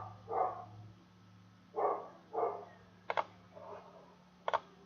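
A dog barking a few short times in the background. A computer mouse double-clicks twice, in the middle and near the end.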